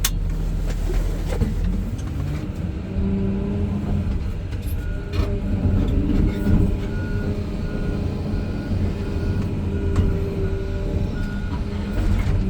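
John Deere 210G excavator's diesel engine running under load while the machine tracks downhill. From about five seconds in, its beeping alarm sounds in evenly spaced beeps over the engine.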